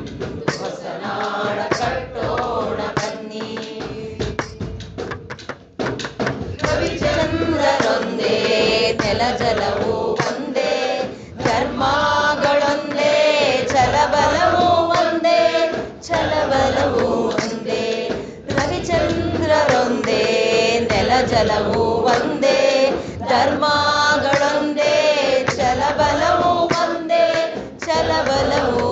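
A group of voices singing a song together, as background music.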